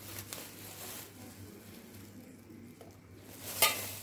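Stirring milk and sugar in a stainless steel saucepan, a faint scraping and swishing with small taps, then one sharp clink of a metal utensil against the pan near the end.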